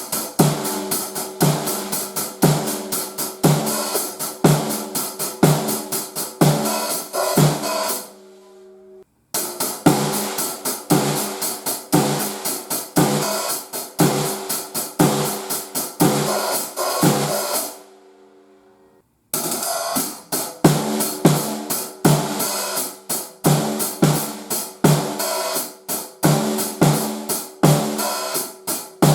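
Drum kit playing a steady groove of hi-hat, snare and bass drum, the snare fitted with a single-ply batter head for a head-to-head sound comparison. The playing stops twice, the drums ringing out briefly before the groove starts again.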